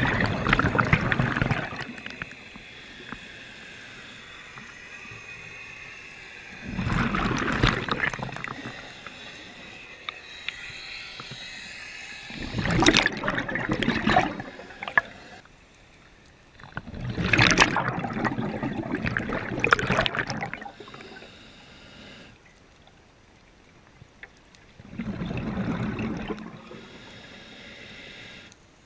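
Scuba diver breathing underwater through a regulator: five bubbling rushes of exhaled bubbles, about one every five seconds, with a fainter hiss between them.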